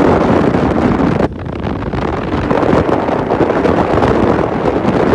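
Loud wind buffeting the microphone. It dips suddenly a little over a second in, then builds back up.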